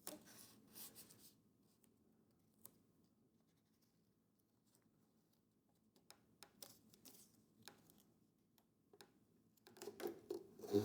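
Faint, scattered crinkles and rubs of blue painter's tape being handled and pressed onto a landing-gear fairing, with near-silent stretches between them.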